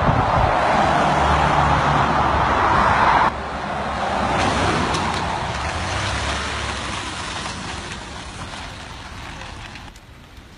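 Road traffic passing on a dual carriageway, a steady loud rush of tyre and wind noise. It cuts off abruptly about three seconds in, giving way to a quieter steady outdoor noise that slowly fades.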